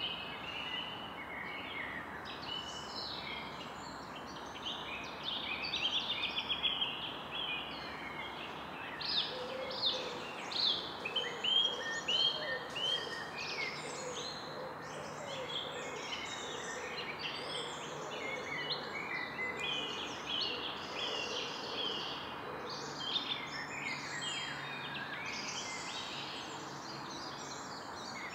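Forest ambience in the evening: many birds chirping and singing at once over a steady background hiss, busiest and loudest for several seconds in the first half.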